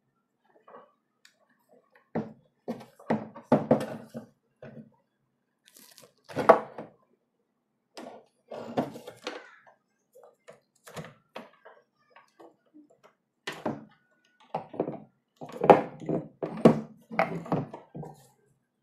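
Plastic parts of a Pureit Marvella RO water purifier being handled: the membrane housing, filter cartridges and tubing knocking and clicking together in irregular clusters, with short pauses between.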